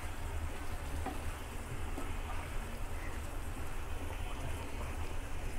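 Egg curry sizzling steadily in a frying pan as it is stirred with a wooden spatula, with a few faint scrapes and taps, over a steady low rumble.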